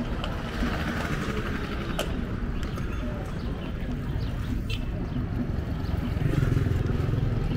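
Street traffic: a steady low rumble of motor vehicles, with one engine growing louder near the end, and a sharp click about two seconds in.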